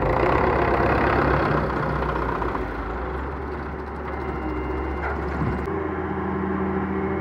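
Heavy diesel engine running at a steady speed. Its sound changes abruptly about six seconds in.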